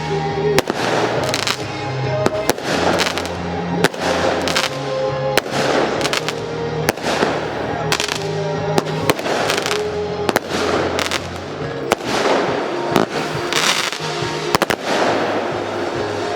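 Fireworks display: a rapid run of firework bursts, sharp bangs about two a second, with background music playing throughout.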